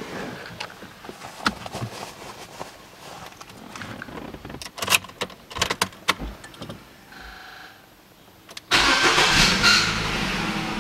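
Clicks and knocks from someone settling into the driver's seat, then about nine seconds in the starter cranks the Nissan Qashqai's 2.0-litre petrol engine and it catches, running loudly. The starter is making extra noise, which the owner takes as a sign it will need attention.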